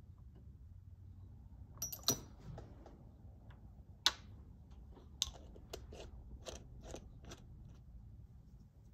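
Small glass ink bottles and their dropper and screw cap being handled on a table: a sharp clink about two seconds in, a louder one about four seconds in, then a quick run of lighter clicks and taps.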